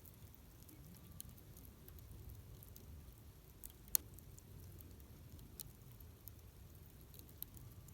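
Wood campfire crackling: scattered small snaps and pops over a low steady rumble, with one sharper pop about four seconds in.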